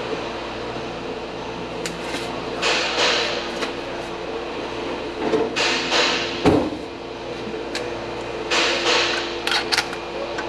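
Hand-tool and parts handling while a new engine oil level sensor is fitted from underneath: scattered rustling and clatter, a single dull knock about six seconds in, and a run of sharp clicks near the end. A steady workshop hum runs underneath.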